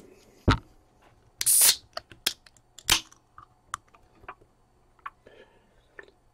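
A can of iced tea being handled and drunk from: a sharp knock as it is picked up about half a second in, a short loud hiss about a second and a half in, a loud click near the three-second mark, then small clicks and sips before it is set back down.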